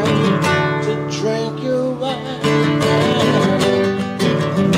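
Nylon-string classical guitar strummed and picked, playing a song accompaniment.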